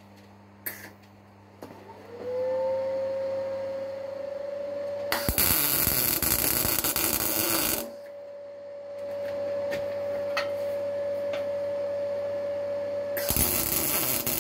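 Electric welding of an M8 nut onto the back of a steel panel: two bursts of arc noise, each about two and a half seconds long, the second starting near the end. Under them a steady hum sets in about two seconds in and holds one pitch throughout.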